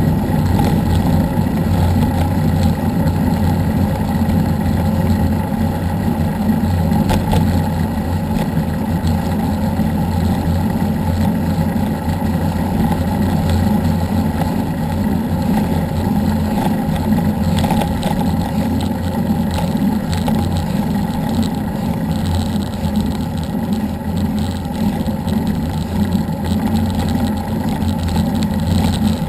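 Steady wind rumble buffeting an action camera's microphone at speed on a downhill road, with the hiss of tyres on asphalt.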